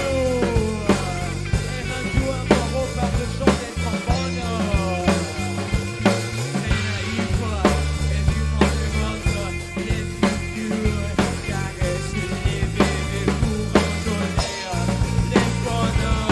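Rock band playing an instrumental passage: drum kit keeping a steady beat over an electric bass line, with pitched notes sliding downward over the top.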